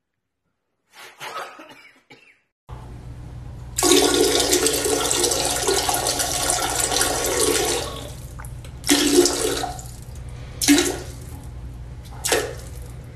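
A toilet flushing: a rushing of water lasting about four seconds, over a steady low hum. Afterwards come several short bursts of similar noise, one to two seconds apart.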